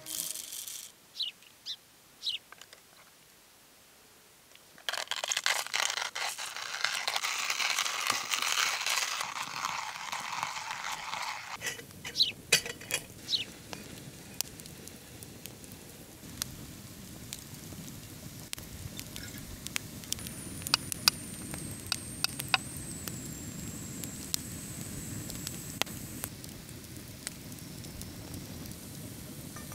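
Hand-cranked coffee grinder crunching beans for about six seconds, then light metallic clicks and taps as a stainless moka pot is handled, over a steady low rumble.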